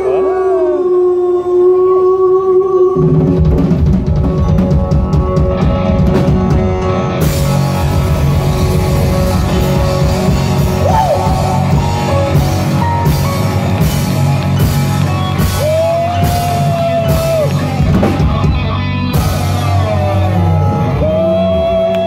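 Live rock band playing with electric guitar, bass, drum kit and a singer. Held notes open it, then the drums and full band come in about three seconds in, with repeated cymbal crashes over the rest.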